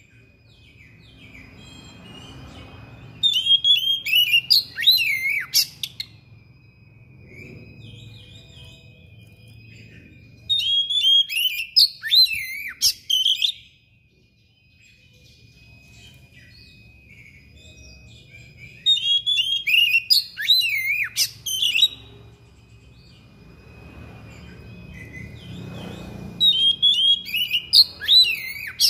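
Caged Oriental magpie-robin (kacer) singing in four bouts of about three seconds each, separated by pauses of several seconds. Each bout is a fast run of varied whistles and glides: the bird pouring out its repertoire of mimicked phrases (isian).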